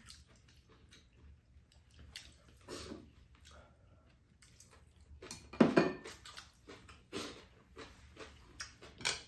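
Eating at a table: metal chopsticks clicking against ceramic bowls and plastic trays, with chewing. A louder short noisy sound comes about five and a half seconds in.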